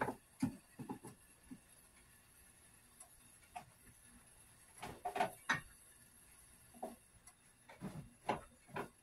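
Scattered light knocks and clicks of kitchen containers and cupboard items being handled, in short groups, the loudest about five seconds in, as a spice is searched for.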